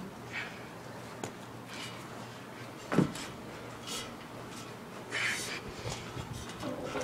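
Scattered scuffs and knocks of someone climbing and moving about, with one loud thump about three seconds in and a few brief hissing rustles between.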